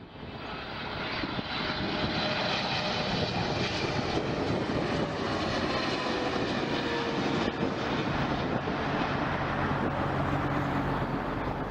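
Airliner engines passing at an airport. The sound builds over the first two seconds, then holds steady, with a faint whine that slowly drops in pitch.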